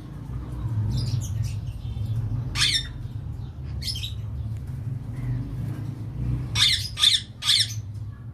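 Ringneck parakeet giving short harsh squawks: a single call twice, then three quick loud squawks near the end, over a steady low hum.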